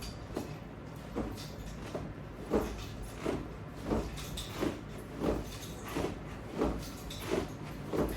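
Short rubbing or swishing sounds repeated in a steady rhythm, about one every 0.7 seconds, from a repeated exercise movement with resistance bands and straps.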